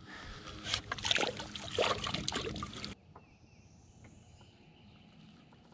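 Loud rustling and knocking as a small bass is handled over a fishing boat. After an abrupt cut about three seconds in, it turns to faint water lapping at the hull with a few light ticks.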